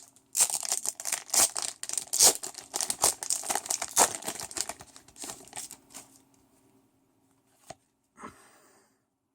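Foil wrapper of a Pokémon card booster pack being torn open and crinkled for about six seconds, then a single tick and a short rustle near the end.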